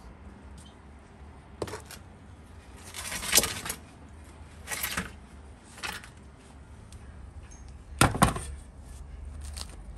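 Metal baking tray scraping and clinking as it is pulled out across the floor of a brick wood-fired oven, then set down on a wooden table with two knocks about eight seconds in.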